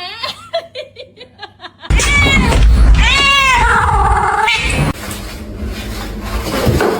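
A cat meowing: a short call at the start, then after about two seconds a brief meow followed by a long drawn-out yowl that slides down in pitch.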